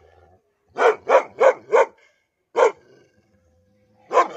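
A large dog barking: a quick run of four barks about a second in, a single bark shortly after, and another bark starting near the end.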